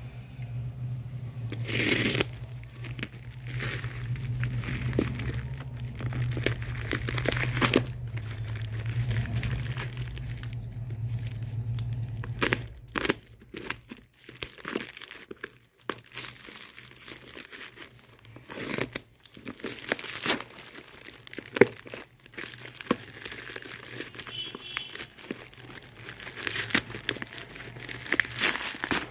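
Plastic courier mailer being cut with scissors, torn open and crinkled as a parcel is unwrapped, in irregular rustles and sharp crackles. A steady low hum runs under the first part and stops about halfway through.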